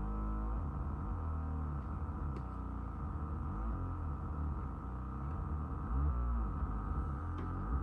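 Moog Mavis analog synthesizer playing a low, droning patch whose tones bend and shift slowly up and down, with reverb on it.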